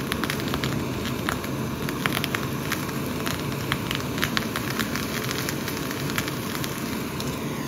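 A steady crackling, sizzling noise with many small sharp pops throughout.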